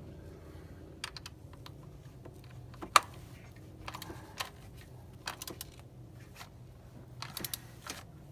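Scattered small clicks and taps, with one sharper click about three seconds in and a quick cluster near the end: hand tools and a fastener being worked as a new ignition coil is threaded back into place on a Toyota Tundra's V8.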